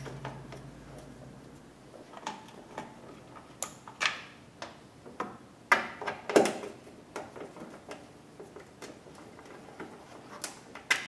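Hand ratchet with a 10 mm socket and extension clicking in short, irregular runs, with light metal clinks, as the bolts holding a radiator overflow bottle are turned out.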